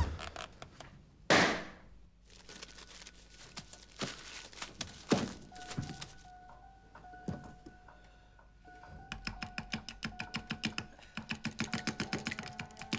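A door shutting with a heavy thump about a second in, followed by a few softer knocks. A faint held tone comes and goes, and from about nine seconds a fast, regular ticking, about four a second, grows louder.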